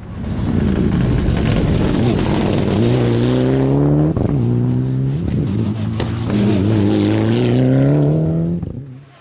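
Mitsubishi Lancer Evolution VI rally car's turbocharged four-cylinder engine under hard acceleration, its pitch climbing through the gears with short drops at the gear changes, then falling away near the end.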